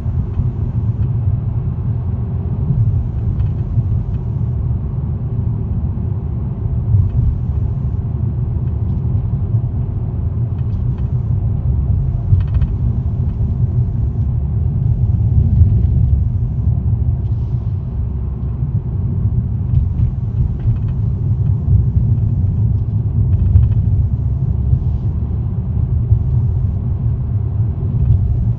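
2018 Toyota Corolla running with a steady low rumble, and faint short rattles that come and go: the rattling noise the car is said to make.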